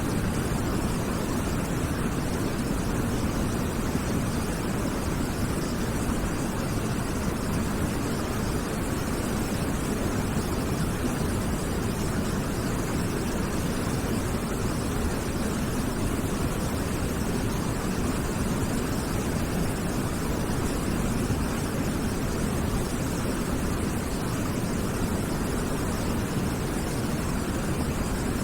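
Waterfall: a steady, unbroken rush of falling water, strongest in the low range.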